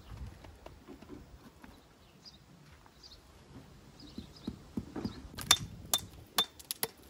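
Sharp metal-on-stone taps from a mason's tool, about eight in quick, uneven succession over the last two seconds, several with a brief ringing note. Fainter low knocks come before them.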